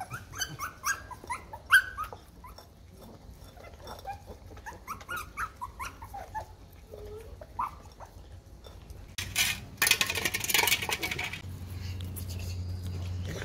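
Several young puppies whining and yipping in short, high-pitched calls that bend up and down in pitch, thickest in the first few seconds, while they jostle at a food bowl. A loud burst of rustling noise comes about nine seconds in and lasts a couple of seconds.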